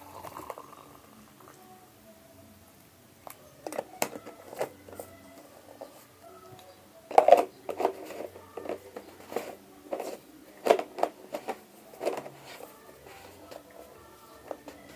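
Irregular clinks and knocks of a cup and spoon being handled, loudest about seven seconds in.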